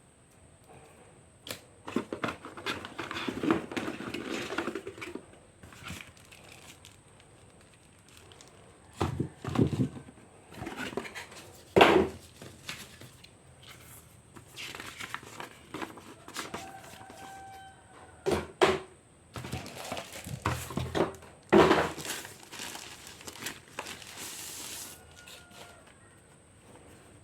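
Laptop packaging being unwrapped: plastic crinkling and tearing in irregular bursts, with a few sharp louder knocks.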